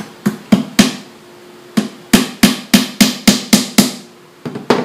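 Hammer strikes on the top panel of a plywood box, driving in small nails. There are three knocks, a short pause, a run of about seven steady blows, then two more near the end, each with a hollow ring from the box.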